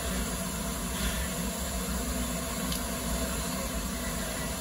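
Steady hiss of steam from the standing Eureka, an 1875 Baldwin 4-4-0 wood-burning steam locomotive, with no beat of exhaust.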